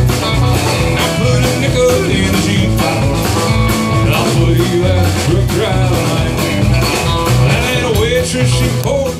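Live country-rock band playing a rocking song: electric guitars over bass and a steady drum beat.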